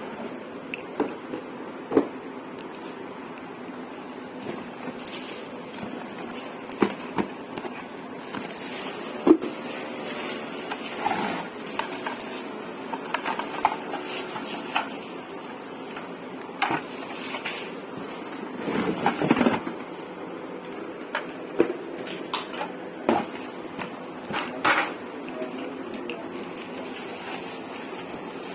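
Packaging and parts of a vacuum cleaner being unpacked and handled: irregular knocks, clicks and rustles, with a longer rustling patch about two-thirds of the way through.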